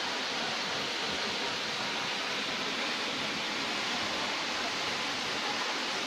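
Steady rush of a waterfall: an even hiss of falling water with no breaks or changes.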